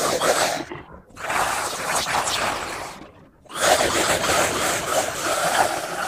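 Horror sound effect of a female monster attacking: a woman's rough, breathy snarling screeches in three long outbursts, the first ending about a second in, the second running to about three seconds, and the third starting half a second later and carrying on.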